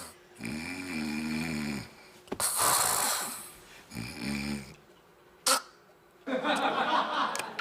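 A person snoring: a low buzzing snore, then a breathy rush of air, repeated twice, with a short click and one more noisy breath near the end.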